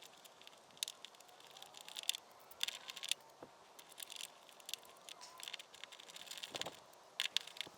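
Faint, irregular small metallic clicks and ticks of a hood latch screw and washer being handled and threaded in by hand, with a couple of sharper clicks.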